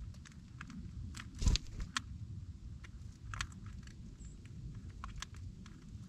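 Blue jays pecking at seed in a metal feeding pan: irregular sharp taps and clicks, with one louder knock about a second and a half in. A low steady rumble runs underneath.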